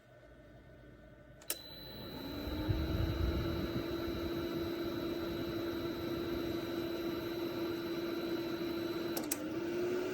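Small ceramic space heater switched on with a click about a second and a half in. Its fan motor spins up with a rising hum, then runs steadily with a rush of air. A second click near the end briefly dips the motor's hum before it settles again.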